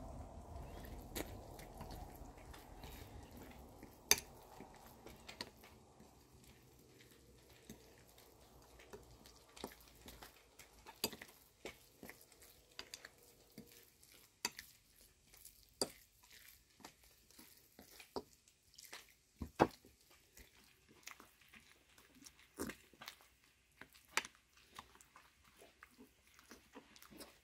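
Metal spoon stirring wet cornmeal batter in a glass bowl: soft squelching and sloshing, denser for the first several seconds while the liquid is worked into the flour, then scattered sharp clicks as the spoon knocks and scrapes the glass.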